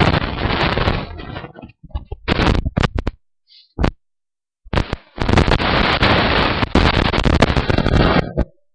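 Microphone handling noise: loud crackling rustle and scraping of fabric against the webcam's microphone as it is pushed into a cushion, coming in three stretches with short quiet gaps, the longest starting about five seconds in.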